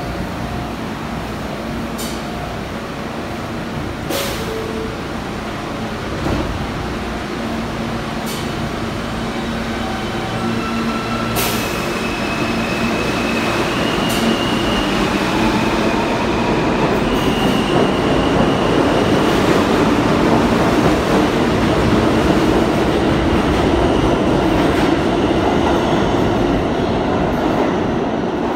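New York City subway train running past a station platform, its rumble growing louder from about the middle on. Several sharp clicks in the first half and brief thin, high wheel squeals in the middle.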